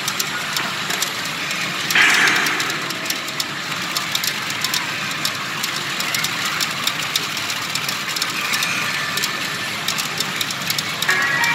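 Pachinko parlour din: a steady roar of machines with steel balls clicking and clattering through them, and a louder rush about two seconds in.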